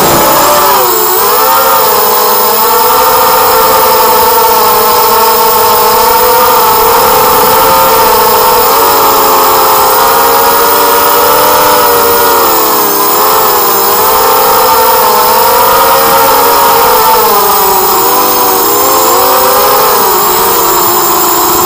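Brushless motors of a small racing quadcopter (DYS BE1806 2300kv with HQ 4045 bullnose propellers) whining loudly, the pitch dipping and climbing several times as the throttle changes, picked up by the quad's own onboard camera.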